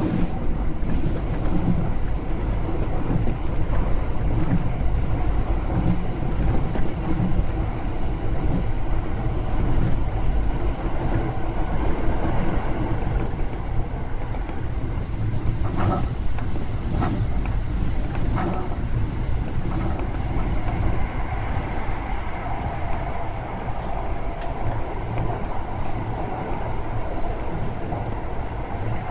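Toei Shinjuku Line subway train running through a tunnel, heard from inside the front car: a steady low rumble of wheels on rail, with a few sharp clicks about halfway through and a higher steady tone coming in during the last third.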